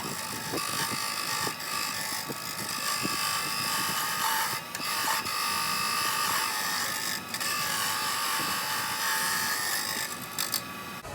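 Wen benchtop wood lathe running while a turning chisel cuts the spinning wood, a steady buzzing scrape with a couple of brief breaks, ending just before the close.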